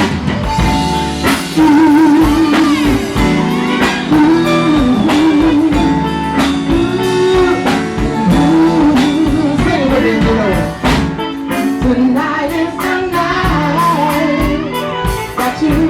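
Live blues band playing loudly: electric guitar lines over bass and drums, with a singer's voice.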